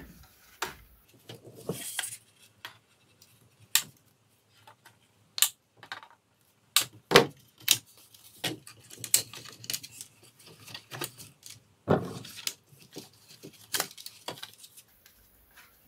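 Side cutters snipping cable ties, and plastic radiosonde casings and a wooden stick clicking and knocking as they are handled: a string of scattered sharp clicks.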